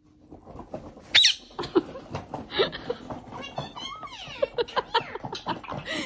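Blue Indian ringneck parakeet chattering, with a loud sharp squawk about a second in, then quick clicks and high whistled calls.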